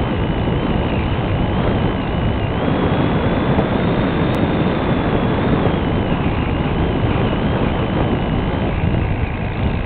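Onboard sound of a Multiplex Cularis electric model motor glider in flight: a steady rush of air and propeller noise over the camera microphone, with a thin high whine that wavers slightly in pitch.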